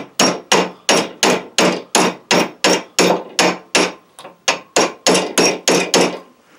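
Steady hammer blows on a flat-steel trigger blank clamped in a Craftsman bench vise, about three a second, each strike ringing briefly: the trigger being hammered into shape.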